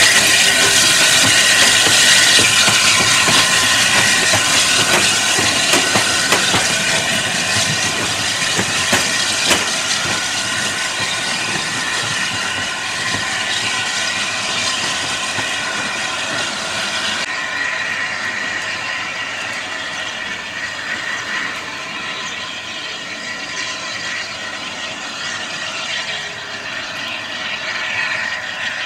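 Steam locomotive hauling coaches away: a steady steam hiss with wheel clicks over the rail joints, slowly fading as the train recedes.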